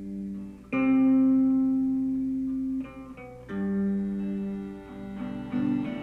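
Instrumental passage of a song with no singing: long held, ringing notes on a stringed instrument, with a new note coming in about a second in and another about three and a half seconds in, then shorter, wavering notes near the end.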